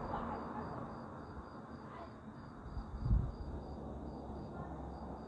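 Road and engine noise inside a moving car's cabin: a steady low rumble, with one brief thump about three seconds in.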